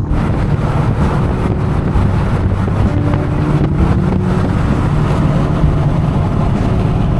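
A vehicle engine running steadily while driving, with wind and road noise over a low hum.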